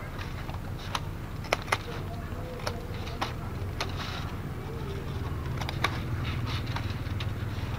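Scissors snipping through thin bamboo strips, trimming the loose ends around a woven basket base: a string of sharp clicks, irregular and about a second apart, over a steady low hum.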